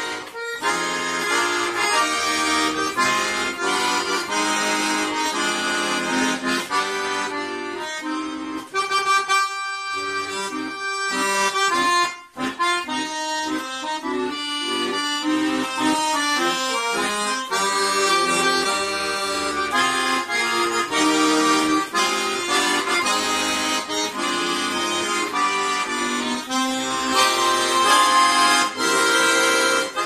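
Solo accordion playing a tune, melody over bass chords. The bass drops out for a couple of seconds about nine seconds in, and the playing breaks off for a moment about twelve seconds in.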